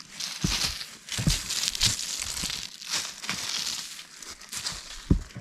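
Crinkling, rustling handling of dry material, with several short dull thumps.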